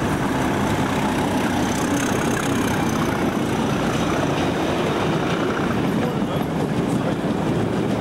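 Class 37 diesel locomotive with its English Electric V12 engine running as it passes at the start, followed by the steady noise of a long train of freight wagons rolling by on the track.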